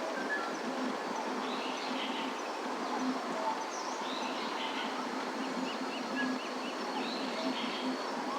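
Outdoor ambience: a steady wash of noise with birds chirping every couple of seconds over it, and a quick run of about six short calls a little past the middle.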